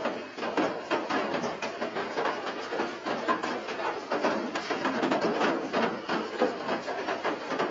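Rain pattering as a dense, steady stream of small irregular taps and clicks.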